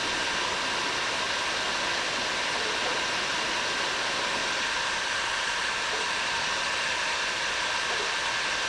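Bauer heat gun running steadily, its fan blowing a constant hiss with a faint steady whine, as it heats a copper pipe solder joint that it cannot get hot enough to melt the solder properly.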